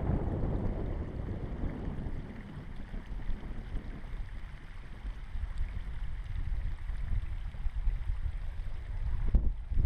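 Wind buffeting the camera microphone: a low, rumbling noise that rises and falls in gusts, stronger at the start and again near the end.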